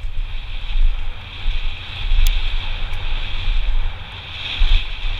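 Wind buffeting a head-mounted camera's microphone as a mountain bike rolls down a dirt trail, a gusting rumble over a steady hiss of tyre and trail noise. Two sharp clicks come about two and three seconds in.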